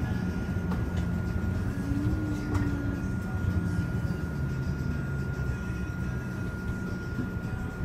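Solaris Urbino 15 city bus heard from inside the cabin while driving: a steady low engine and drivetrain drone with a thin constant high whine and a few light clicks.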